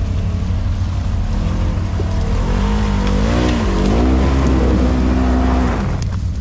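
Side-by-side UTV engine revving under load as it pulls out of a mud hole, its pitch rising and falling with the throttle, then easing off near the end.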